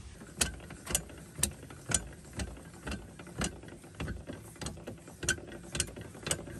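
Hand-worked lifting gear, a ratchet strap and bottle jack, clicking steadily about twice a second as it raises a truck's plastic fuel tank back up to the frame.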